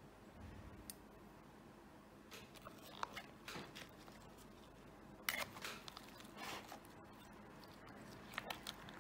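A fork and then a spoon stirring pieces of chicken and tomato in a plastic bowl: faint scattered clicks and scrapes, the loudest a little past halfway.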